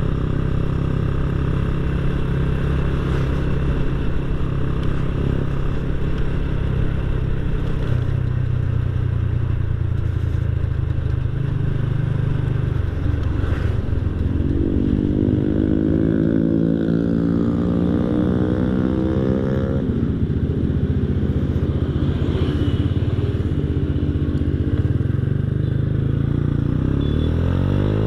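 Honda Astrea Grand's 100 cc single-cylinder four-stroke engine running under way through a gutted Honda Revo Absolute muffler, giving a bassy, mellow exhaust note. Its pitch climbs for several seconds around the middle and again near the end. It is heard through an external mic inside the rider's closed helmet.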